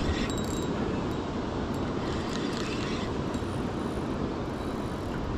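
Steady wind rushing over the microphone, with sea water sloshing and lapping around a small boat.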